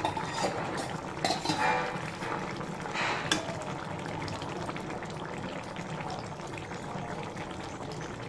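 Metal spatula scraping and knocking against an aluminium kadai as a fish curry is stirred, with several strokes in the first few seconds. After that, the curry bubbles steadily at a simmer.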